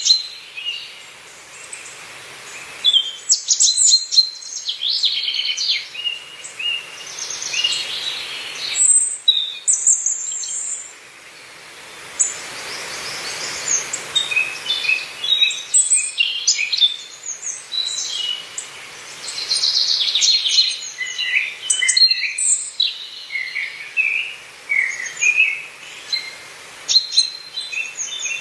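Several songbirds singing and calling in a forest, short chirps and trills overlapping throughout. A soft rush of breeze swells and fades near the middle.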